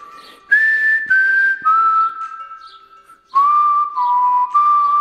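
Outro music: a whistled melody of held notes stepping between pitches over a light rhythmic backing, with a brief lull just past the middle.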